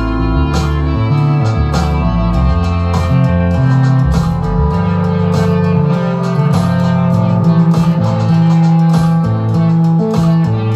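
Live instrumental jam: electric guitar playing over a sampled drum beat and a moving bass line.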